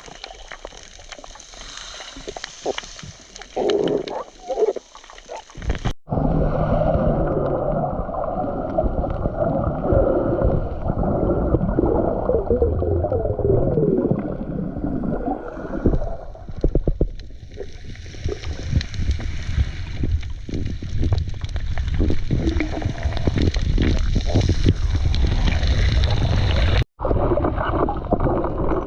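Water noise on a spearfishing camera: gurgling and rushing water, dense and heavy in the low end. It is quieter for the first several seconds and changes abruptly twice, as separate clips are cut together.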